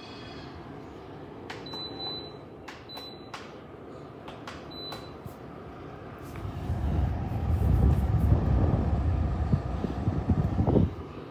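Homix DF-AF290C air conditioner running with a steady hum while its controls give several short high beeps in the first few seconds. Then a loud low rumble lasts about four seconds and cuts off suddenly.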